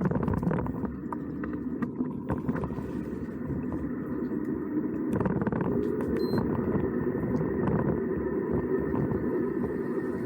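Vehicle engine running steadily under load with road noise, as on an uphill climb.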